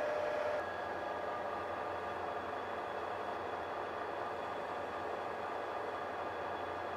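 Metal lathe running steadily while a flat file is held against the spinning shaft to take off the last tenth of a millimetre for a press fit. A steady tone in the machine's sound stops just under a second in.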